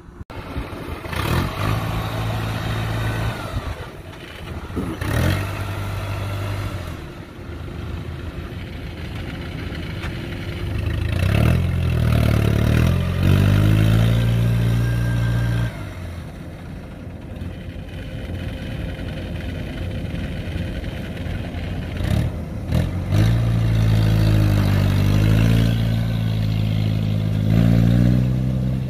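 Kubota DC-93 combine harvester's diesel engine running under load, revving up and down in two spells, about midway and again near the end.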